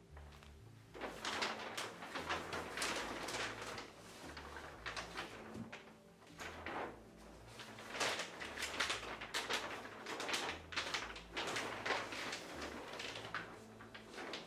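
Black-and-white polyethylene sheeting (panda film) rustling and crinkling in repeated uneven bursts as it is handled and pulled up against the ceiling, starting about a second in. Faint background music with low stepped notes runs underneath.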